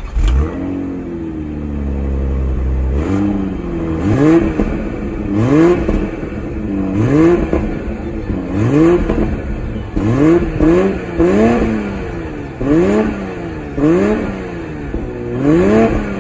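BMW Z4 M40i's turbocharged 3.0-litre inline-six heard at the exhaust tips. It holds a steady fast idle for about three seconds, then is revved in about a dozen quick blips, each rising and falling back in pitch.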